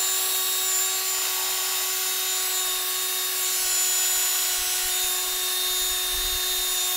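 Small electric motor, most likely a cordless power tool, running at constant speed with a steady high-pitched whine that does not change in pitch.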